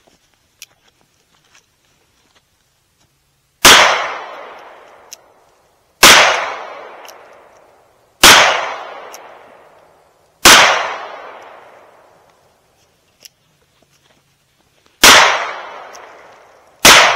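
Six shots from a revolver firing 130-grain .38 Special rounds, spaced about two seconds apart with a longer pause before the fifth; each sharp report trails off over about a second.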